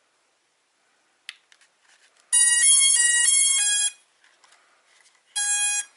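Hubsan Zino Mini SE drone powering on: a click, then a short startup tune of high beeping notes lasting about a second and a half, and one more beep near the end.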